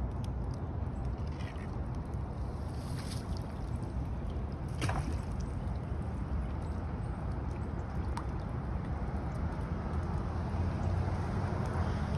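Steady low rush of moving floodwater, with a few short sharp clicks.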